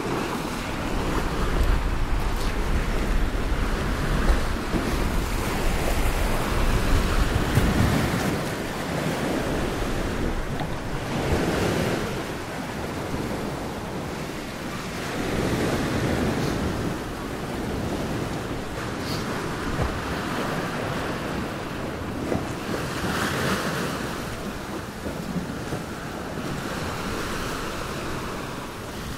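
Sea waves washing in and drawing back, the surf swelling and fading every few seconds, with wind buffeting the microphone as a low rumble in the first several seconds.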